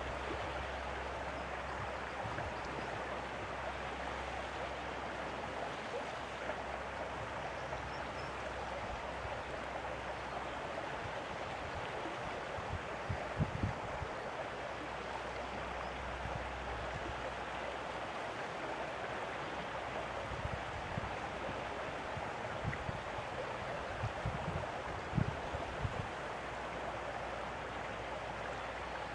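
Steady wash of water, with a few low gusts of wind rumbling on the microphone around the middle and again later on.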